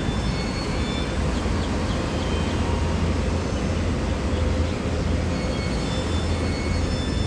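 Steady low vehicle rumble, swelling slightly about four to five seconds in, with a few faint short high tones above it.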